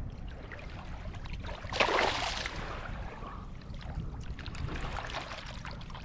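Shallow water lapping and trickling over a sandy shoreline, with a louder splash about two seconds in as a released fluke swims off.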